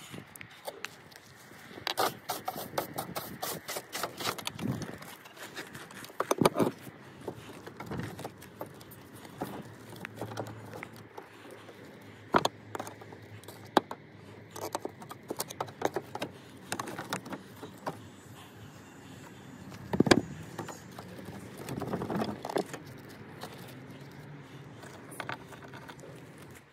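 Gloved hands working lead step flashing against brickwork: irregular scrapes, taps and knocks of the soft sheet lead on brick and roof tiles, with a few sharper knocks scattered through.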